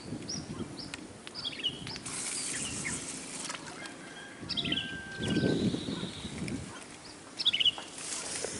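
Small birds chirping repeatedly in short, high calls. Two spells of hissing, rustling noise come about two seconds in and near the end, with a low rumble in the middle.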